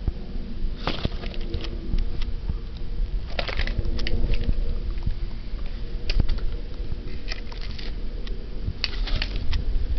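Handling noise: scattered clicks and short rustles as a hand moves the leather helmet and the camera about, over a low steady hum.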